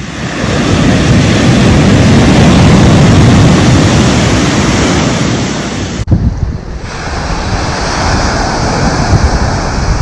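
Ocean surf breaking and washing up a pebble beach. It swells over the first second, is loudest in the middle, then eases off. About six seconds in there is a sudden cut to another stretch of surf, with wind buffeting the microphone.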